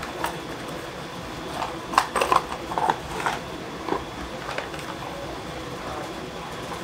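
Small cardboard lure boxes being picked up and handled at an old wooden tackle box: a scatter of light clicks, taps and rustles, busiest about two to three seconds in.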